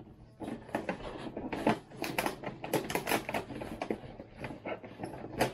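Cardboard box and packaging being handled: rustling, scraping and many small clicks as a boxed item is pulled out of a cardboard shipping box, with a sharper click near the end.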